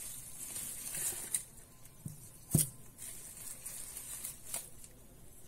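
Bubble-wrap packaging crinkling and rustling in the hands as it is pulled open, with a few light clicks and one sharp snap about two and a half seconds in.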